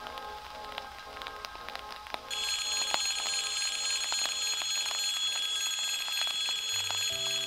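Rain pattering and dripping. About two seconds in, a steady high electric ringing starts abruptly and keeps going, like a warning bell.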